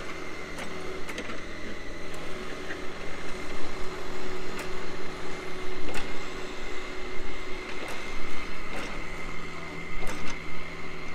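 Caterpillar mini excavator's diesel engine running steadily while the machine tracks over loose dirt and pushes it with its blade, with scattered clanks and rattles from the tracks and blade and a steady high whine above the engine note.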